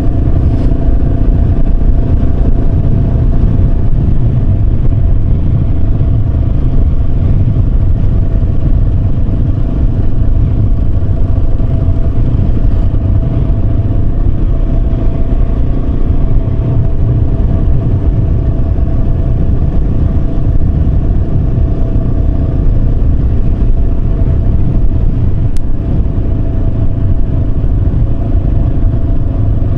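Yamaha Serow 250's single-cylinder engine running at a steady cruise, with heavy wind rumble on the microphone.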